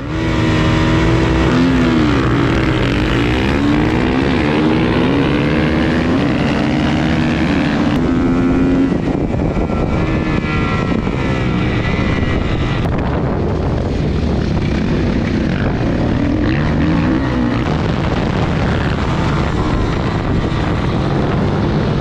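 Kawasaki KX450F single-cylinder four-stroke supermoto engine running hard under race acceleration, its pitch climbing and dropping again and again as the rider shifts gears and rolls off for corners.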